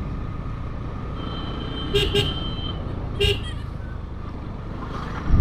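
A motorcycle in motion, with its engine and road noise making a steady low rumble. Over it come short vehicle horn toots: two quick ones about two seconds in and one more about a second later.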